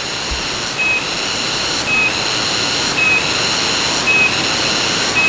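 Loud insects calling, a high buzzing song that pulses about once a second with a short high note at each pulse, over the steady rush of a waterfall.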